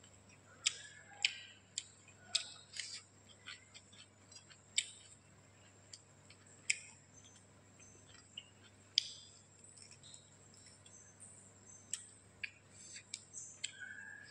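Close-up eating sounds: irregular sharp, wet clicks and smacks from chewing and from fingers mixing rice and gravy on a plate.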